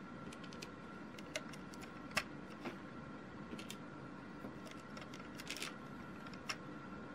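Faint, scattered clicks of small plastic Lego pieces being handled and pressed onto a model's studs, with a sharper click about two seconds in.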